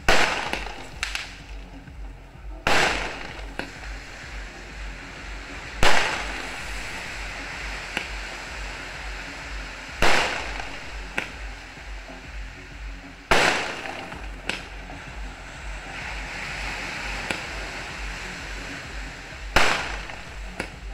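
Aerial fireworks bursting overhead: about six loud booms a few seconds apart, each trailing off, with smaller cracks and a steady hiss between them.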